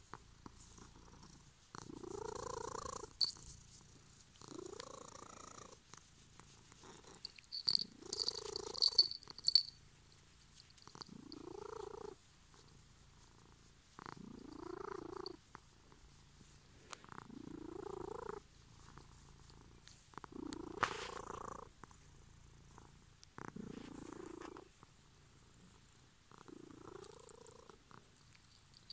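Domestic cat purring loudly close to the microphone, the purr swelling and fading in regular waves about every three seconds.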